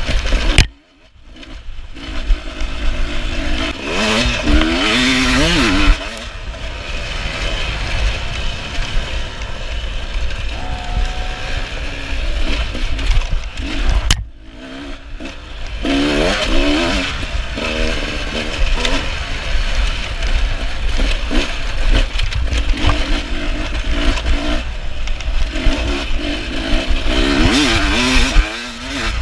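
Beta 300RR two-stroke dirt bike engine revving hard under load, its pitch climbing and falling over and over with the throttle and gear changes. The engine note drops away sharply twice, about a second in and again about halfway through, then picks back up.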